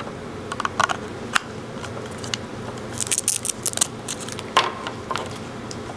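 Handling noise of a USB cable and a small plastic relay box: scattered short plastic clicks as the plug is pushed into the port, and rustling of the coiled cable, densest about three seconds in.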